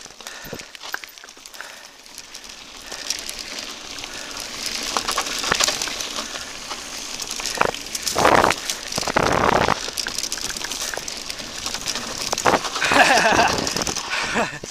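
Whyte T-129 S full-suspension mountain bike running fast down a dirt trail, heard from a handlebar-mounted camera: tyres crackling over the ground with small rattles, getting louder as speed builds. Loud rushes of wind noise on the microphone come about eight and nine seconds in and again near the end.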